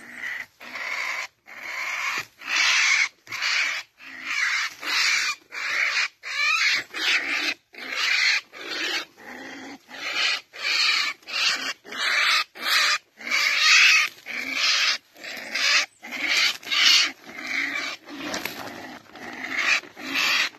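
A trapped chồn, a small weasel-like wild carnivore, crying harshly in distress while being handled, in short rasping calls repeated nearly twice a second without a break.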